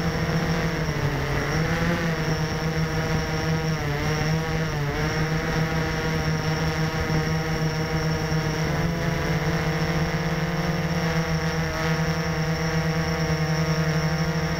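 Blade 350 QX quadcopter's four brushless motors and propellers whining as it hovers, heard from a camera on board. The pitch wavers up and down several times in the first five seconds as the motor speeds change, then holds steadier.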